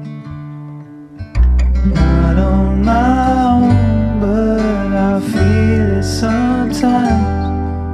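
Background song with guitar and a singing voice; a low bass comes in about a second and a half in and the music grows fuller.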